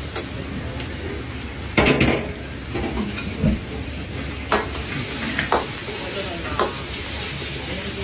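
Egg fried rice sizzling in a wok over a gas burner, with a metal ladle scraping and knocking against the wok about once a second as the rice is stir-fried; the sharpest knocks come about two seconds in.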